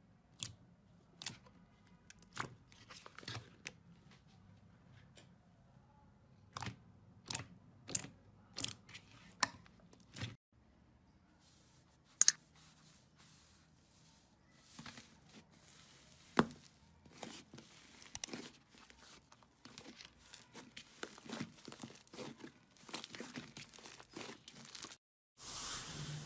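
Slime being pressed and squished by hand, giving off irregular sharp sticky pops and clicks, with one much louder pop about twelve seconds in and denser crackling near the end.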